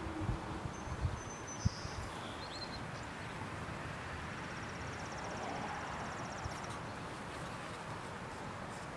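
Outdoor ambience as a falling siren tone fades out right at the start: a few short high bird chirps, then an insect's fast, even buzz for a couple of seconds in the middle, with a few low thumps near the start.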